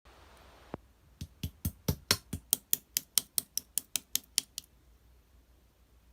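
A short hiss, then a quick, even run of about seventeen sharp taps or clicks, roughly five a second, stopping abruptly after about four and a half seconds.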